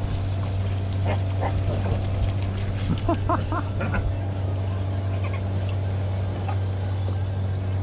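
Belgian Malinois giving short, excited yips and barks: a pair about a second in, then a quick run of four or five around three seconds in, over a steady low hum.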